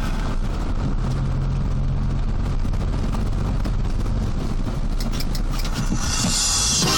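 A motor vehicle engine running steadily with a low hum. Music comes back in about six seconds in.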